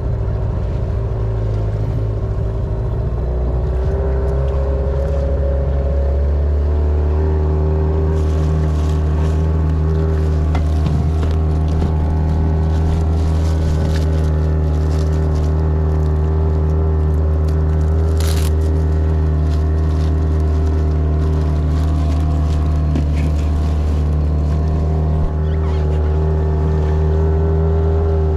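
Outboard motor running steadily and driving an inflatable boat over the sea. It picks up a little a few seconds in, then holds an even speed.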